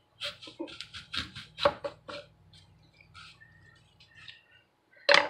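A handheld tube apple corer being pushed and twisted through a whole raw apple: a quick run of crunching clicks in the first two seconds, then fainter scraping, and a sharp knock near the end.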